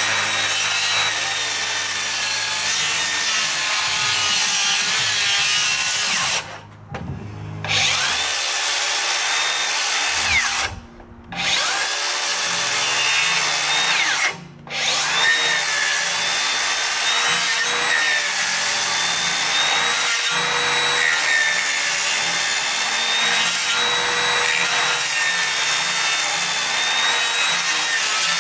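Circular saw running and cutting through a laminated timber (LVL) beam, a steady loud whine with the rasp of the blade in the wood. The sound drops out suddenly three times, near seven and eleven seconds in for about a second and more briefly near fourteen seconds.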